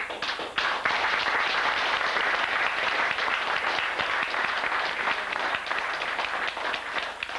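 Audience applauding. The applause breaks out suddenly and keeps up as a dense patter, thinning into more separate claps near the end.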